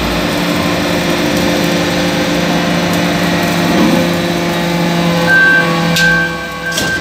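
Hydraulic metal-chip briquetting press running: the steady hum of its hydraulic pump and motor. A high whine joins about five seconds in, and two sharp clicks come near the end.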